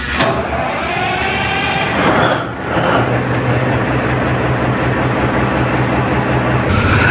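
Caterpillar 3512 V12 marine diesel engine cold-starting: a clank and a rising whine while it cranks, then it catches about three seconds in and settles into a steady low running drone.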